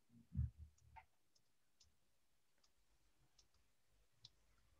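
Near silence with about ten faint, sharp clicks scattered at uneven intervals, and one short, soft low thump about half a second in.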